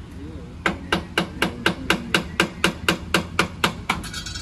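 Hammer striking metal on a tractor engine being dismantled: about fourteen quick, even blows, some four a second, each with a short ring. They start just under a second in and stop near the end.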